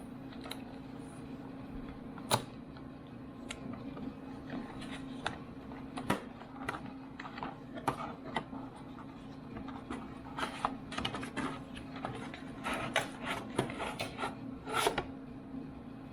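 Packaging of a power bank handled during unboxing: scattered clicks and short rustles of the box and plastic, coming more thickly in the second half, over a steady low hum.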